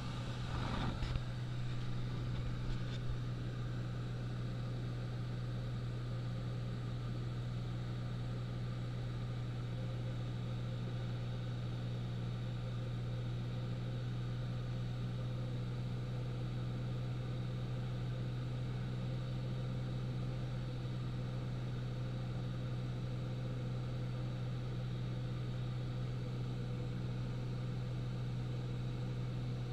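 Light aircraft's piston engine and propeller droning steadily, heard inside the cabin of a small high-wing plane. A few brief knocks fall in the first three seconds.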